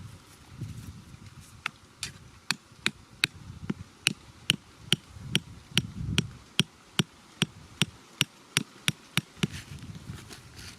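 A quick series of sharp strikes from a tool hitting something, about three a second, each with a short metallic ring. The strikes start a couple of seconds in and stop about a second before the end.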